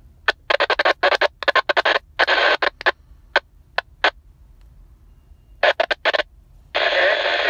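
UHF CB radio's speaker putting out choppy bursts of radio static and hiss, breaking on and off several times a second, with a lull in the middle and a longer burst of about a second and a half near the end.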